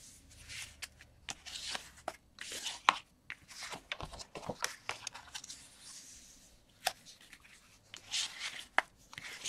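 A sheet of card stock being folded along its score lines and handled: rustling, sliding paper swishes and crackling creases, with a few sharp clicks, the loudest about three seconds in.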